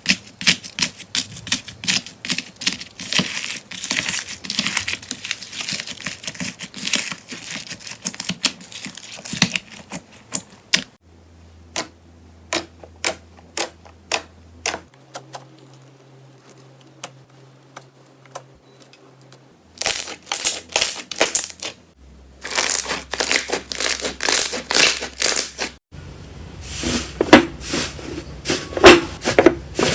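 Slime being squeezed and poked by hand: a fast run of sharp crackling clicks and pops. It drops to sparse, quieter clicks about 11 seconds in and turns dense and loud again from about 20 seconds, with abrupt changes of sound between clips.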